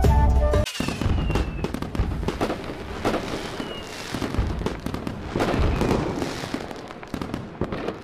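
Fireworks crackling and popping densely, with two brief whistling tones, slowly fading; a flute melody cuts off within the first second as the crackling begins.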